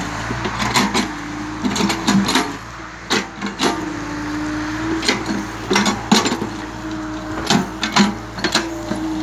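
Hitachi ZX48U mini excavator's diesel engine running steadily under hydraulic load while the bucket digs into soil. Frequent irregular clanks and knocks come from the bucket and arm as they work.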